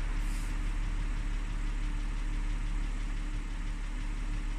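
Audi A6 2.8 V6 engine (CHVA) idling cold during warm-up, with a light repetitive ticking, 'tsik-tsik-tsik', over the steady idle. The tick appears only while the engine is cold and lasts until it is fully warm; the owner has not found its cause. A brief hiss near the start.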